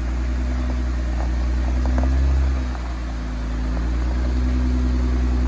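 Jeep Wrangler JK's V6 engine running steadily at low speed on a trail climb, easing off about two and a half seconds in and then building again.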